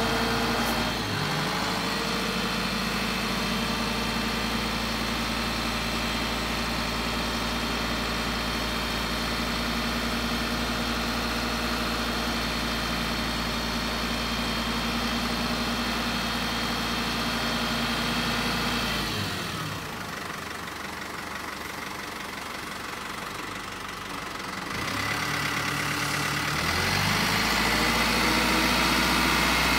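The Hino Dutro's 4.0-litre N04C turbo diesel runs steadily while the Tadano crane's boom is worked. Its revs drop to a quieter, lower idle about two-thirds of the way through, then climb back up near the end.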